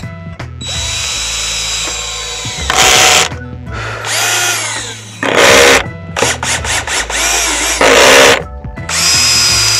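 Cordless drill-driver driving screws into wooden boards in several runs, its motor pitch rising as it speeds up and falling as it winds down between runs.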